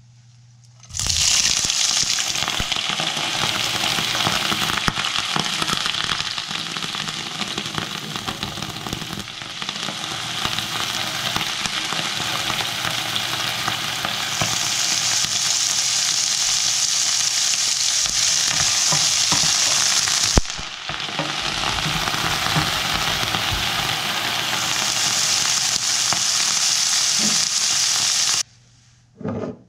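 Food sizzling in hot oil in a wok, with clicks and scrapes from stirring. It starts about a second in and cuts out shortly before the end.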